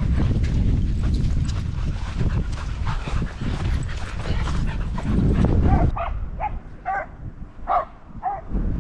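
Loud rumbling wind and movement noise on the camera microphone, then about five dog barks in quick succession near the end, from a distant dog chasing a deer.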